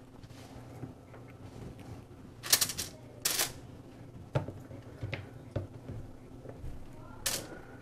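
Homemade aluminium-foil tray crinkling and ticking as onion rings are laid in it: several short crinkly bursts, the loudest about two and a half and three and a quarter seconds in and again near the end, with lighter clicks between.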